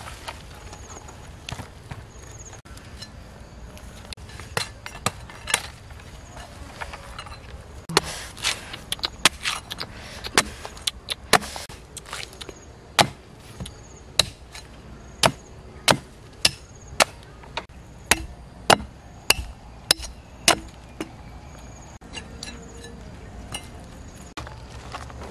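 Large serrated knife chopping into the husk of a green coconut: a few scattered knocks, then a run of about twenty sharp strikes, roughly two a second, lasting about twelve seconds.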